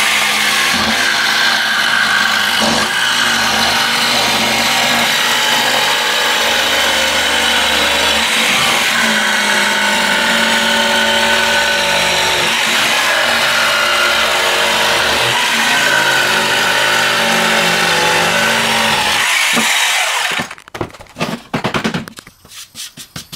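Jigsaw cutting a notch out of a laminate floor board, running steadily for about twenty seconds and then stopping, followed by a few knocks as the board is handled.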